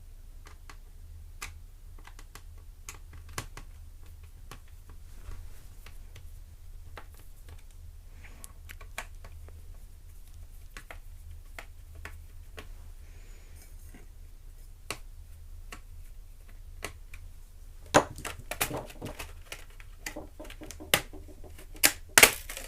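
Small irregular clicks and ticks of a screwdriver working the screws of a ThinkPad E450's DIMM cover on the laptop's plastic underside. Sharper, louder plastic clicks and knocks come in the last few seconds.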